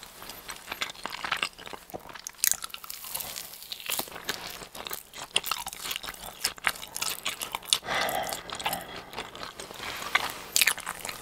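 Close-miked chewing of a giant cheese ball: the crust crunches in irregular crackles between bites.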